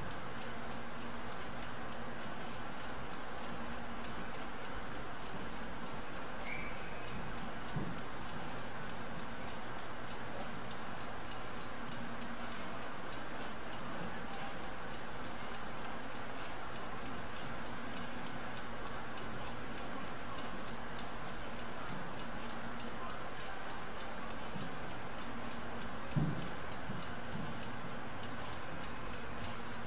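Laboratory stopclock ticking rapidly and evenly as it runs. A soft knock comes about 26 seconds in.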